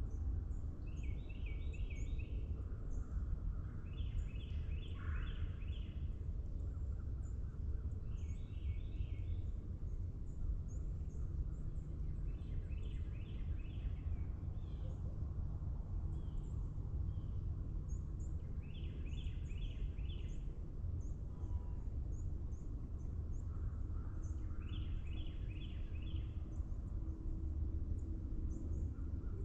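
Songbirds singing in a forest: one bird repeats a short phrase of several quick notes every few seconds, with faint high chirps from other birds between, over a steady low rumble.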